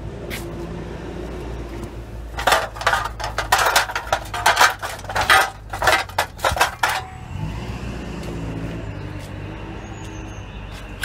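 Strips of scrap iron clanking and rattling against one another as they are pulled out of a car: a run of sharp metallic knocks for several seconds in the middle, over a steady hum.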